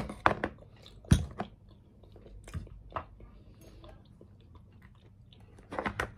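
A person chewing and biting food close to the microphone, with a run of sharp clicks and crunches. These are loudest in the first second and a half and again just before the end.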